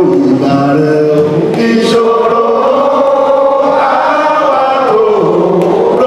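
Chanting voices, holding long notes that slide and step from one pitch to the next.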